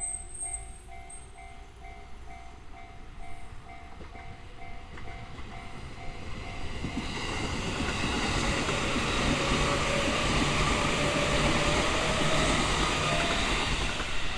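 Level-crossing warning bell (JR standard electronic alarm) ringing in steady, evenly repeated pulses. About seven seconds in, a JR 211 series electric train passes through the crossing, and its rumble grows loud and drowns out the bell.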